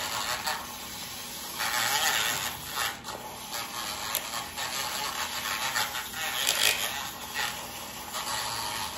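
Matcha being whisked into hot water in a cup: fast scraping and swishing that comes in uneven bursts.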